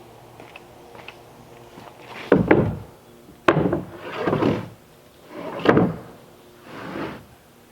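A series of wooden knocks and short scraping swishes, about five in five seconds, some beginning with a sharp knock and others swelling and fading over half a second.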